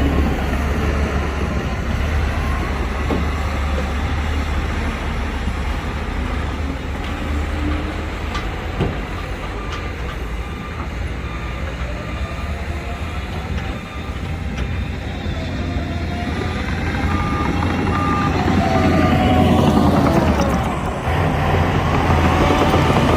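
Heavy diesel earthmoving machines running, their engine pitch rising and falling as they work. A reversing alarm beeps for a few seconds past the middle.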